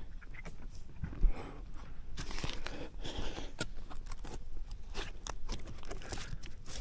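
Bare hands and feet scraping and gripping rough tree bark during a climb: many short crackles and rubs, with one sharp knock against the trunk about a second in.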